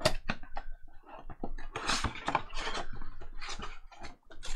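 Trading cards and pack wrappers being handled: a quick run of crisp clicks, slides and rustles, with a longer rustle about two seconds in.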